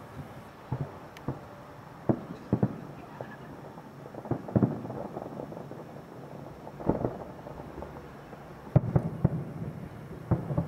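Aerial firework shells bursting overhead in a string of irregular booms, several coming in quick pairs, each with a short rumbling tail; the loudest bursts come near the end.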